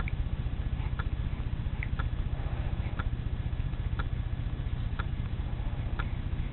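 A clock ticking steadily once a second over a constant low rumble, with two brief high-pitched squeaks near the start, the second just under two seconds in.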